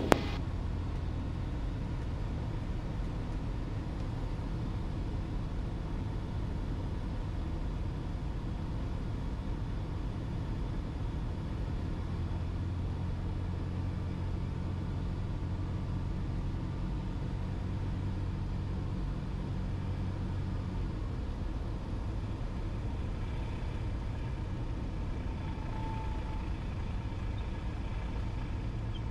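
Cessna 172's piston engine and propeller at reduced power on the landing approach, a steady drone heard inside the cabin. The drone thickens for a while in the middle, and a brief faint steady tone sounds near the end.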